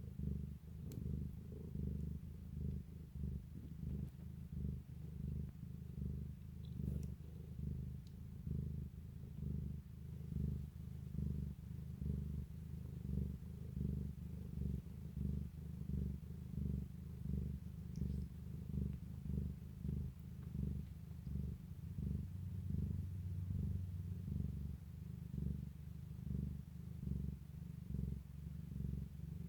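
A mother cat purring steadily while her newborn kittens nurse, a low rumble that swells and fades in even pulses.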